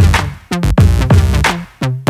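Background electronic music with a strong, steady beat and deep bass notes.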